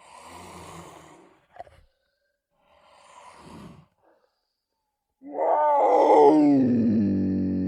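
Smilodon (sabre-toothed cat) sound effect: two breathy snarls with a short click between them, then a loud roar falling in pitch that settles into a steady held tone.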